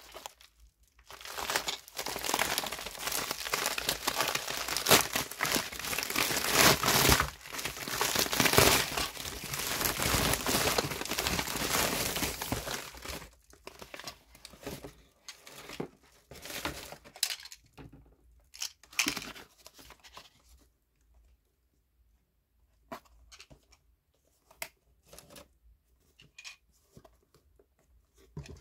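Padded mailer envelope being torn open and crinkled for about twelve seconds, then scattered crinkles and light taps as a box is pulled out and handled.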